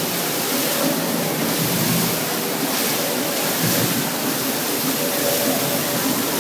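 Fountain water jets spraying into the basin and splashing down, a steady rush of water with no breaks.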